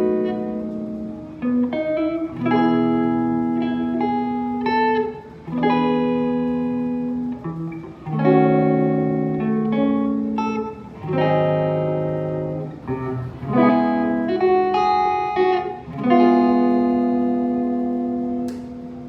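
Ibanez RG421HPFM electric guitar played through a clean tone with a little reverb: a slow run of chords, each struck and left to ring and fade before the next.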